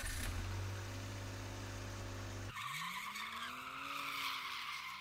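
Car sound effect: a steady low engine drone, then from about halfway an engine note that rises and falls over a hissing tyre screech.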